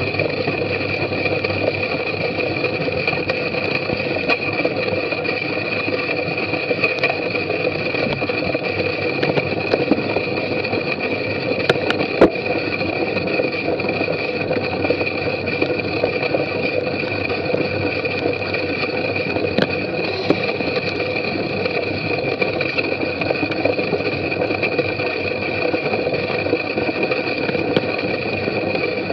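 Steady rumble and rattle of a bicycle riding over muddy, bumpy grass, picked up by a bike-mounted camera, with a constant hum underneath and scattered small knocks, one sharper knock about twelve seconds in.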